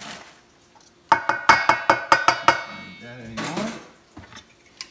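A utensil rapping against a stainless steel mixing bowl, about ten quick strikes over a second and a half starting about a second in, each with a metallic ring.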